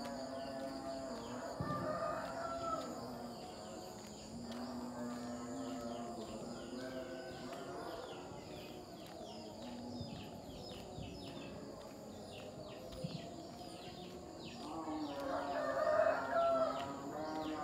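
Roosters crowing several times, the loudest crow near the end, over steady high-pitched insect chirring.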